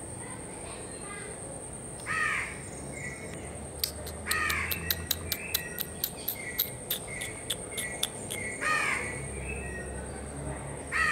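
A bird calling with loud harsh caws, four of them a couple of seconds apart. Between the middle caws, from about four to eight seconds in, there is a run of sharp ticks about two or three a second with short chirps. A steady high-pitched whine runs under it all.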